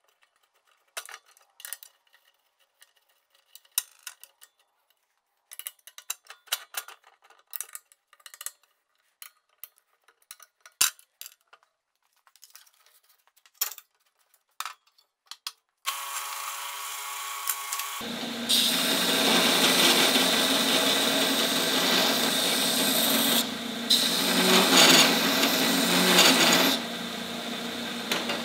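Metal parts and hand tools clink during assembly of a 2x72 belt grinder. About sixteen seconds in, the grinder starts with a steady hum. From about eighteen seconds its belt runs with a loud, steady noise, driven by a 4-inch drive wheel that slows it to about 1800 surface feet per minute, and the sound drops off at the very end.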